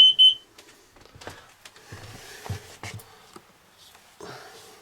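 A Kidde carbon monoxide alarm's high steady beep, set off by engine exhaust, cuts off about a third of a second in. Then a few faint knocks and some soft rustling.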